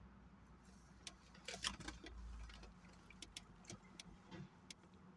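Near silence with a scattering of faint clicks and taps, the loudest a little over a second and a half in, and a brief low rumble around two seconds in.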